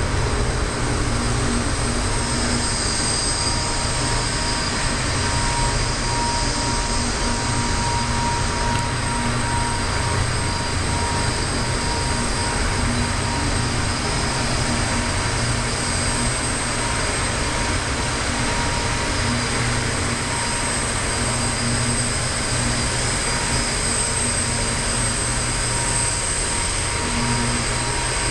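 A steady mechanical drone with several held tones at an even level, like machinery running continuously.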